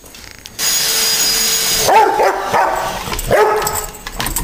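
A brief steady whirring hiss, like a toy vacuum cleaner's motor, lasting about a second. Then an Airedale terrier barks and yips excitedly several times.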